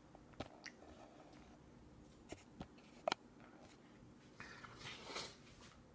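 Quiet, scattered light clicks and a short scrape as a baby handles a spoon in her bowl on a plastic high-chair tray.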